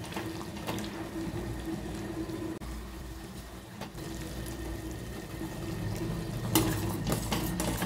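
Sugar syrup boiling hard in a steel pot with paneer balls cooking in it, a steady bubbling. A few light clicks near the end, as a steel ladle touches the pot.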